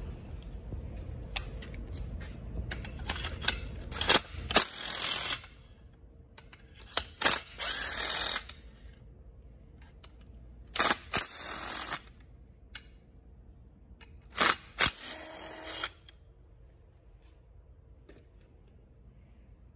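Cordless drill-driver with a long bit backing out the muffler bolts of a Stihl MS 362 chainsaw, in four short runs of about a second each. Sharp clicks and knocks of the tool on the bolts come before each run.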